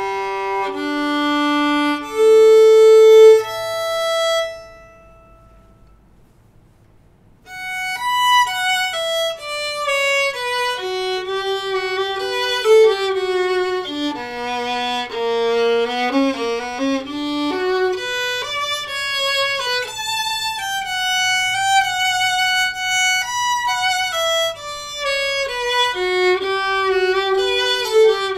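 Martin Kullick Model 300 violin with a solid spruce top and steel strings, played with a bow. It opens with a few long held notes, stops for about three seconds, then plays a flowing melody of changing notes to the end.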